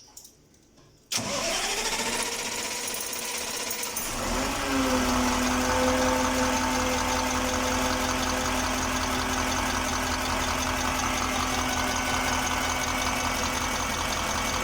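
KamAZ truck diesel engine being started. The starter cranks with a whine rising and levelling for about three seconds, then the engine catches about four seconds in and settles into a steady idle.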